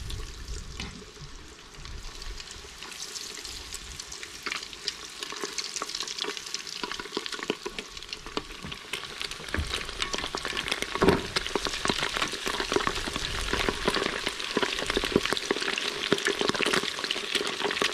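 Panko-breaded perch fillets deep-frying in oil at 180 °C, a dense sizzle of crackling pops that grows louder over the first few seconds after they go in, then holds, with one sharper pop partway through.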